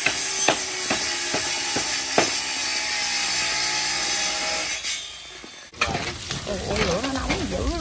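Food frying and sizzling hard in a hot pan while being stirred, with a metal spatula clicking against the pan many times. The sizzling fades about five seconds in, then starts again suddenly near the end.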